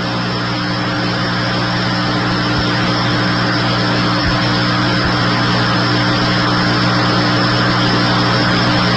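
Steady vehicle noise: a constant rushing hiss over a low, even hum that does not change.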